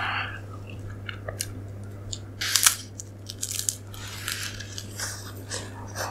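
Biting into and chewing the crisp wafer cone of a Nestlé Drumstick chocolate ice cream cone, close to the microphone. There is a sharp crunch about two and a half seconds in, followed by smaller crunches as it is chewed.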